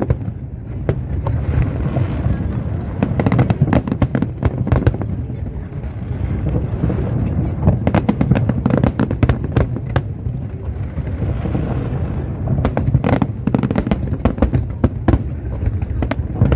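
Aerial fireworks display going off in a rapid, continuous barrage of bangs and crackles over a steady low rumble.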